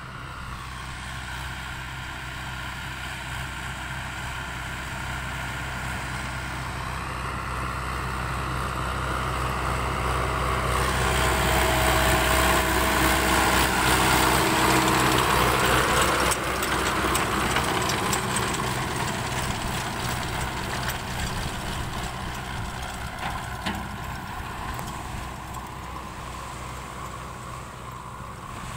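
Sonalika farm tractor's diesel engine running as it drives past towing a beach-cleaning sand sifter. It grows louder to its peak about halfway through, drops off a little and fades away.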